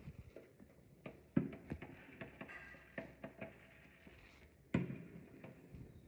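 Fireworks going off: scattered pops and crackles, with two louder bangs, about a second and a half in and near five seconds in.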